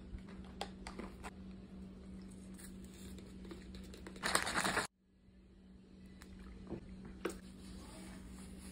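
Crunchy chewing and small packet-handling clicks, then, about four seconds in, a short hiss of orange beverage powder pouring from its packet into a plastic water bottle, which cuts off suddenly. A faint steady low hum runs underneath.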